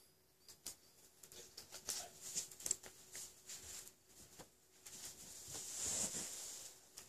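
Scattered light clicks and rustles of someone moving about close to the recording device, swelling into a louder rustle of clothing about six seconds in as the person passes right beside it.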